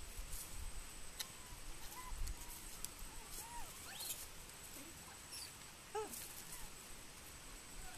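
Monkeys giving short, high squeaky calls, several rising and falling in pitch, the clearest about three-quarters of the way through.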